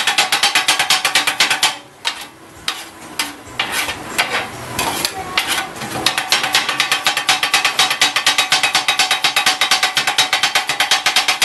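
A flat metal scraper chopping rice and vegetables on a steel griddle, a fast, even clatter of several strikes a second. From about two seconds in it drops for a few seconds to softer, irregular tapping and scraping, then the fast chopping starts again.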